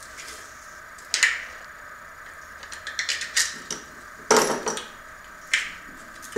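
Hard plastic clicks, cracks and scrapes as pieces of a 3D-printed PLA mould are prised apart and peeled off a freshly cast polyurethane wheel. There are several separate sharp cracks, the loudest a little over four seconds in and lasting about half a second.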